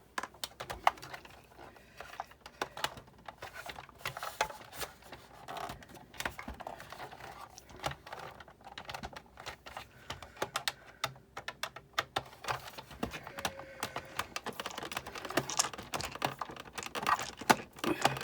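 Irregular small clicks and taps of plastic and metal parts being handled and worked loose as a Sizzix Big Shot die-cutting machine is taken apart by hand.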